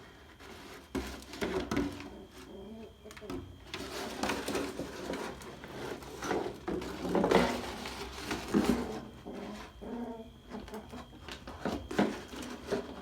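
A puppy growling in uneven bouts, loudest about seven seconds in.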